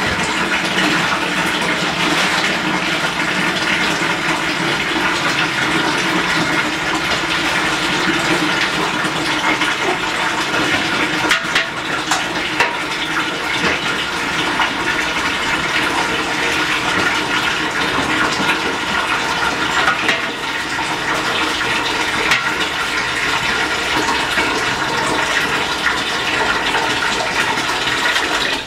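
A steady stream of water running into a plastic bucket, filling it.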